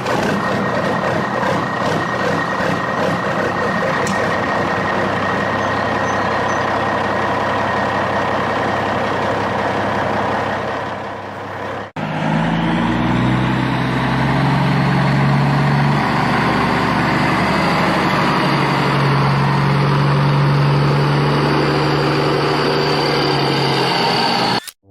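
Heavy truck engine running, in two pieces split by a sharp cut about twelve seconds in; in the second piece the low engine note rises slowly and holds.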